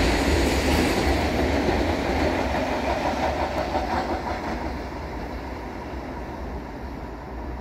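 Freight train's covered goods wagons rolling along the rails, wheels rumbling with some clickety-clack, the sound fading steadily as the tail of the train moves away.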